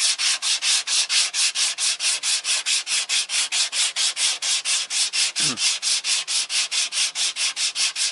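180-grit sandpaper on a small hand block rasping back and forth over cured body filler on a car's wheel arch, in quick even strokes, about five a second. Light pressure only, with the filler sanding off easily.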